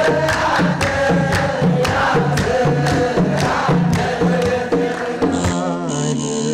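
A crowd of Ethiopian Orthodox clergy chanting together, with hand claps and a drum beating about twice a second. About five seconds in, it cuts to instrumental keyboard music.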